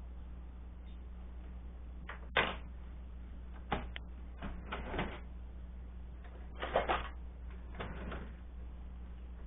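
A string of clicks and knocks from kitchen handling: a lower cabinet door opening and closing, and a plastic food container and its lid being handled, over a steady low hum. The sharpest knock comes about two and a half seconds in, with a cluster of clatter near seven seconds.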